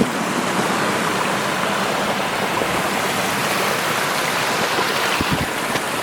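Steady rush of water from a waterfall spilling into a creek, an even hiss with no break.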